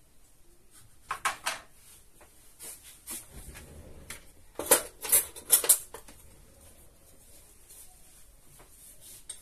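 A spoon tapping and clinking against a bowl while breadcrumbs are spooned into the meatball mix: three quick taps about a second in, then four louder taps around five seconds in.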